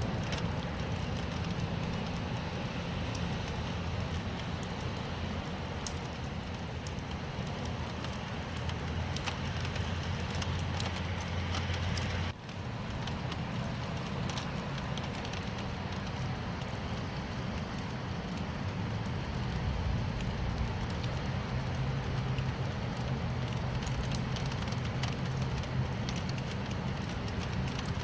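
Steady rain with scattered sharp drop ticks over a continuous low rumble; the sound dips out briefly about twelve seconds in.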